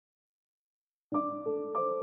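Silence, then gentle keyboard background music starts about halfway through, single notes struck one after another and left to ring.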